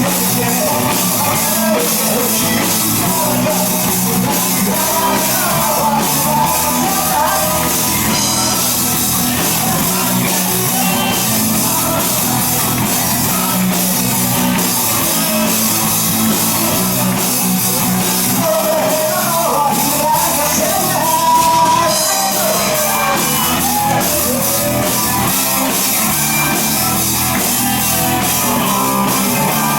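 A band playing a rock song live, with a sung lead vocal over the instruments.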